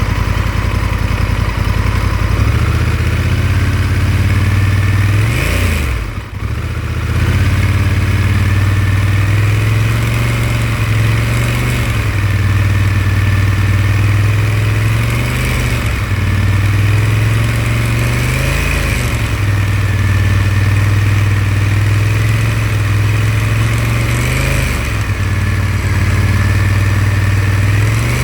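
Honda Africa Twin 1100's parallel-twin engine running with a rattling noise, its engine speed shifting up and down every few seconds, with a brief drop about six seconds in.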